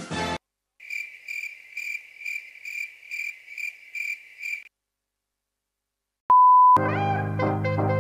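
Cricket chirping sound effect: a steady high chirp repeating about twice a second for about four seconds. After a pause, a short, loud, steady beep tone, followed right away by music starting.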